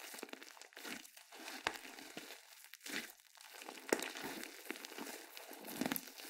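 Slime being squished and stretched by hand, an irregular sticky crackling with sharp little pops, the loudest about four seconds in and again near the end.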